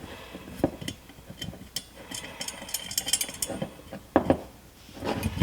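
Hands working the metal bracket and small fasteners of a dead pedal assembly: scattered light clicks and taps, a quick run of fine ticks around the middle, and a couple of louder knocks near the end.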